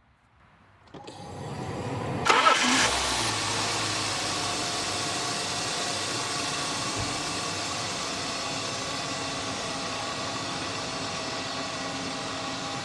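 BMW E36 328i straight-six engine being started: the starter cranks from about a second in, the engine catches with a brief rev flare about two seconds in, then settles into a steady idle. The idle holds steady on a newly fitted coolant temperature sensor, which replaced one giving the engine computer a false temperature reading and causing a hunting idle.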